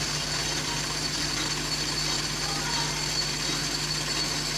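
Metal lathe running steadily: a constant motor hum with a thin, steady high whine over it.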